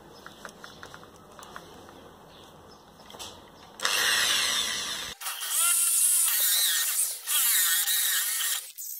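Cordless drill fitted with a toothed hole-saw cutter starting up about four seconds in and boring into a wood blank, its motor whine rising and falling as the cut loads it, then stopping shortly before the end. Before it starts, faint light clicks of tool handling.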